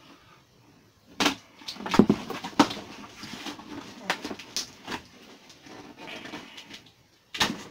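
Cardboard shipping box being handled and opened by hand: scattered sharp knocks, scrapes and rustles of cardboard, a hard knock near the end.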